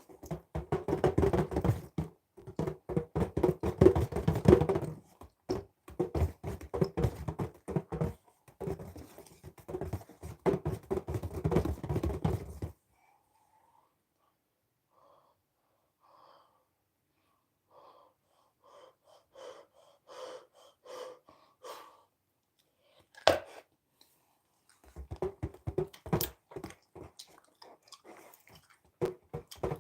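Close-miked bubblegum chewing: rapid wet smacking and clicking for the first dozen seconds and again near the end, with a pause of faint ticks between them and one sharp snap about 23 seconds in.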